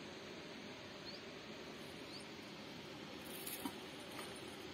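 Steady outdoor background noise by open water. Two faint, short rising chirps come about one and two seconds in, and a few light clicks with a brief hiss follow a little after three seconds.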